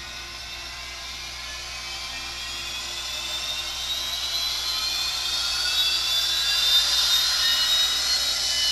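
Sound decoder of an N scale Rapido Turbo Train model playing its startup sequence through the model's small speaker: a gas-turbine whine that rises steadily in pitch and grows louder as the turbine spools up.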